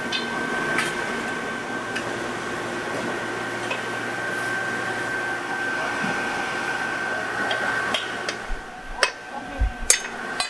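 Steady factory machinery noise with a high constant tone, then several sharp clinks and knocks of glassware or tools near the end as the machine noise drops away.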